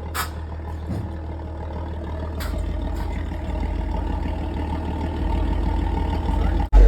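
Ford F-250 pickup's engine idling with a steady low hum that grows slowly louder. A sharp click comes just after the start and another about two and a half seconds in, and the sound drops out for an instant just before the end.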